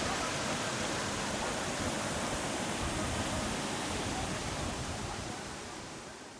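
Waterfall: water rushing in a steady, even noise that fades out near the end.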